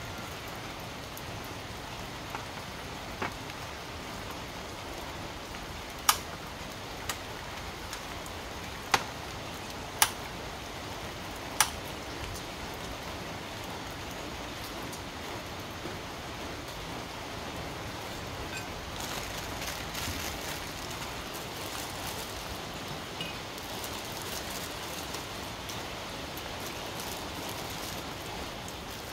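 Steady hiss with a handful of sharp clicks and clinks, about five between six and twelve seconds in. From about two-thirds of the way through, crinkly plastic rustling comes in as instant-noodle packets are torn open.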